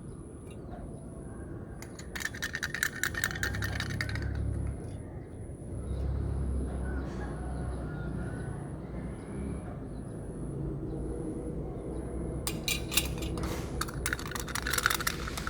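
Small plastic charms or beads poured and rattling into a small bucket, as two runs of quick clicking clatter, one about two seconds in and one near the end, over a low background rumble.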